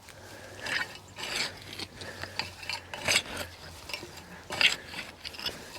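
Irregular scraping and rustling of digging through dry soil to lift potatoes, with several louder scrapes.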